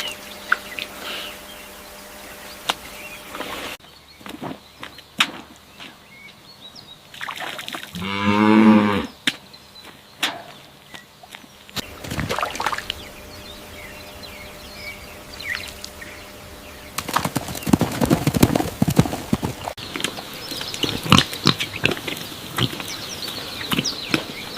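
Several short animal sound clips edited back to back over outdoor background noise. Just after a third of the way in there is a single pitched call about a second long that dips and rises in pitch. In the second half there is a long stretch of rapid clicking and rustling.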